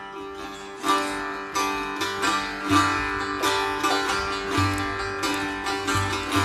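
Background music: a plucked string instrument picking out a melody, each note struck sharply and ringing on, over a steady drone.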